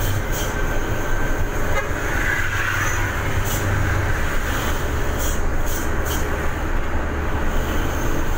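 Vehicle engine and road noise heard from inside the cab: a steady low rumble with a few light clicks and rattles.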